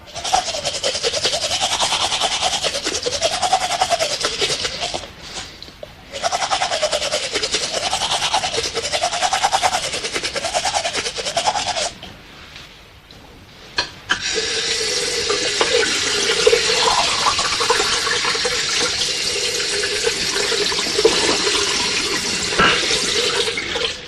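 Loud rushing, water-like noise effect with a tone swooping up and down about once a second. It drops out briefly twice, and after about fourteen seconds a steady held tone sits under the noise.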